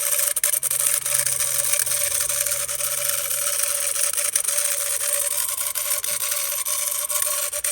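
PetSafe pet-fountain pump, a small induction-motor water pump, running with a steady buzz and hiss. A lower hum drops away about halfway through. The pump sounds unhealthy, the sign of a pump that is failing.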